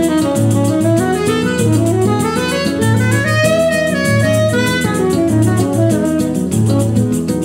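Instrumental music from a small acoustic band: a saxophone melody that climbs and then falls, over acoustic guitar and a steady pulsing bass line.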